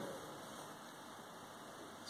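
Faint steady hiss of room tone, with no distinct sound events.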